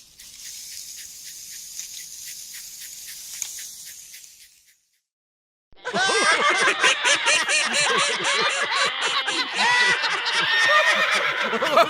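A steady, high hiss with a fast rattle in it for about five seconds. It stops, and after a second of silence a loud, dense chorus of many overlapping chirping, clucking calls begins.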